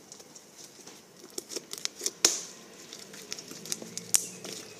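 White-glue fluffy slime being squished and stretched by hand, giving irregular sharp pops and clicks, the loudest about two seconds in and again near the end.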